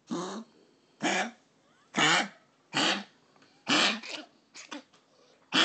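Chihuahua cough-gagging: a run of harsh, hacking coughs about once a second, six or seven in all, a couple of them doubled. The owner suspects a collapsed trachea or some other respiratory problem.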